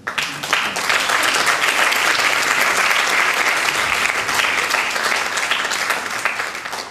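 Audience applauding, starting abruptly as a poem reading ends and dying away near the end.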